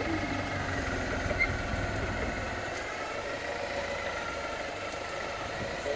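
Clark forklift's engine running steadily while the forklift manoeuvres with a stack of wooden pallets on its forks.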